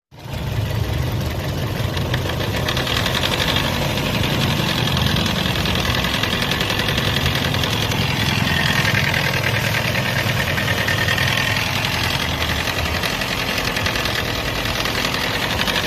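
Toyota Vios engine running steadily with a fast, even knocking through it, a knock that the mechanic goes on to put down to the timing chain.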